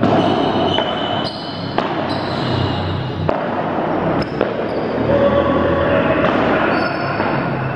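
Ball being struck and bouncing on a hard court floor, about four sharp impacts roughly a second apart, over the general noise of players and voices in a large indoor sports hall.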